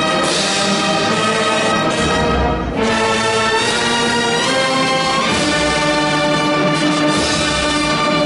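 Brass band playing slow, held chords, with the chord changing every two to three seconds.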